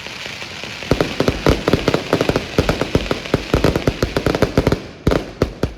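Fireworks going off in a rapid, crackling barrage of sharp bangs, several a second, ending with a few separate bangs near the end.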